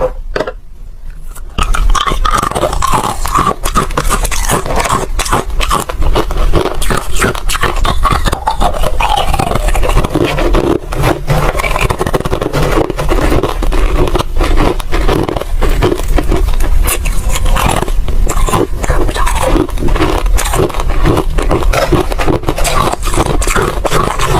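Ice being bitten and chewed: a dense, continuous crunching and cracking that starts about a second and a half in.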